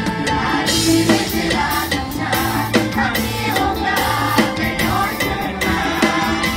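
Mor lam band music: a drum kit keeps a steady, driving beat under bass, other instruments and singing.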